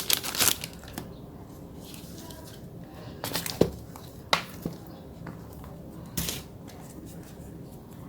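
Plastic packaging crinkling briefly at the start, then a handful of separate sharp taps and clicks as photocards are handled and sorted.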